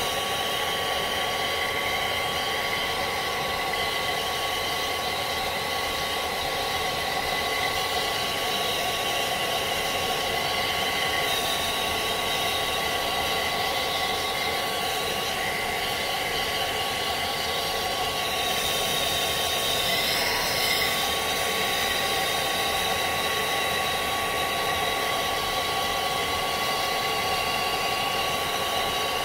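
Handheld hair dryer running steadily, a rush of blown air with a constant thin whine from its motor.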